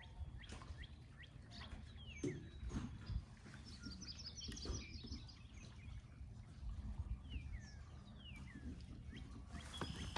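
Birds chirping, several short calls that each fall in pitch, over a low steady rumble, with a few light knocks.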